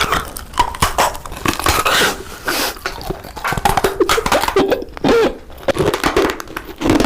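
Close-miked eating: chewing and crunching food, with many short crisp crackles and mouth noises and a few brief throaty sounds.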